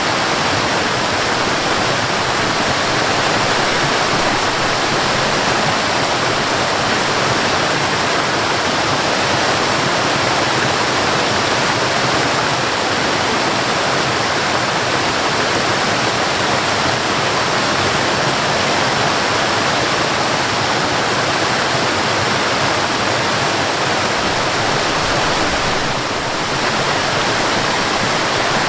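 Waterfall: a steady, loud rush of falling water, with one brief dip near the end.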